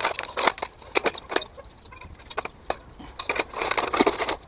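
Metal paint spray guns clinking and clattering against each other as they are rummaged through by hand in a bucket: a quick run of sharp metallic clinks, busiest about three to four seconds in.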